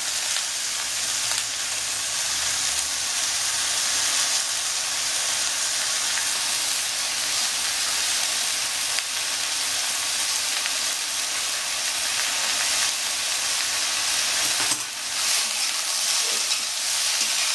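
Cubed ridge gourd, potato and onion sizzling steadily in hot mustard oil in a karahi, stirred now and then with a metal spatula that scrapes the pan briefly near the end.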